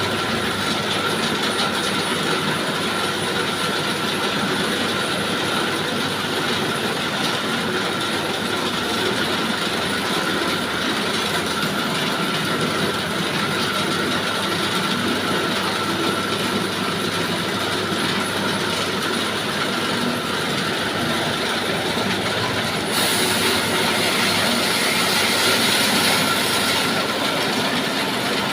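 Adhikarya sawmill running and sawing timber: steady machine noise with a high, even whine through it. Near the end it grows louder and hissier for about four seconds.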